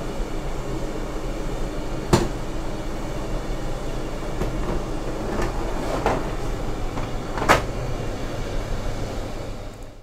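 Plastic water reservoir drawer of a Siemens iQ300 condenser tumble dryer being pulled out and handled, with a sharp knock about two seconds in and several lighter plastic knocks and clicks after. A steady low rumble runs underneath.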